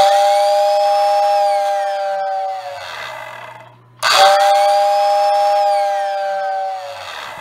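Motor-driven whistle in a 1948 Lionel 6466WX tender blowing twice, each blast about three seconds long. Each blast is a steady two-note hoot over the hiss of its fan, and it sinks away with a falling whine as the motor winds down.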